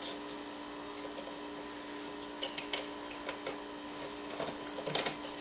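Faint clicks and plastic scraping as a Crucial RAM stick is worked down into a motherboard's memory slot, over a steady low hum.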